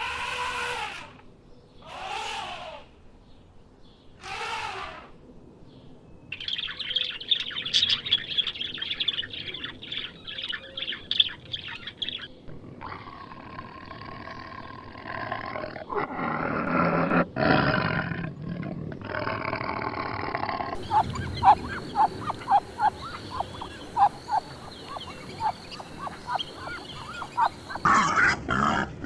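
Several different animal calls played one recording after another. There are three separate calls in the first five seconds, then several seconds of fast, high chirping, then other animal sounds ending in rapid repeated calls.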